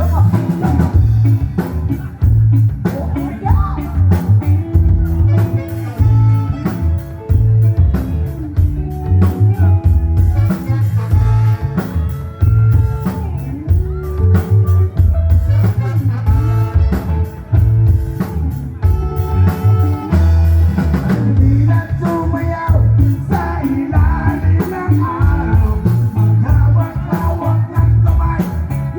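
Rock band playing: drum kit keeping a steady beat under bass and guitar, with singing.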